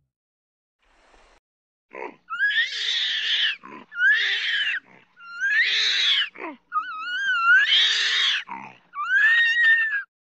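Orangutan giving a series of five harsh, high-pitched screams, each about a second long with a rising pitch, the fourth longer and wavering, separated by short gaps.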